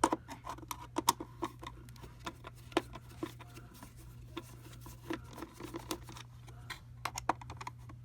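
Irregular light clicks and taps of a Torx screwdriver and hard plastic parts being handled while screws are undone on an Oreck upright vacuum's plastic housing.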